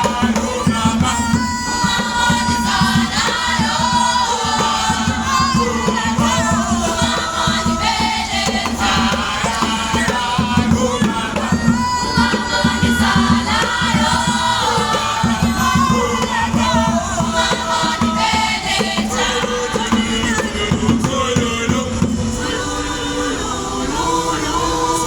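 A group of children singing together in a choir, with a dense, steady low beat running under the voices.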